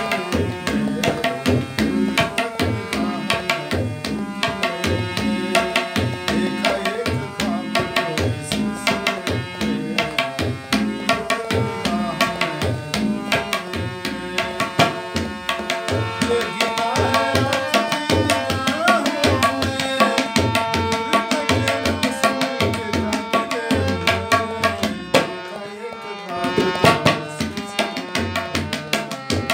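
Harmonium and tabla played together: the harmonium's sustained reed tones carry the melody over a steady tabla rhythm with regular deep bass strokes from the bayan. The music eases briefly near the end, then picks up again.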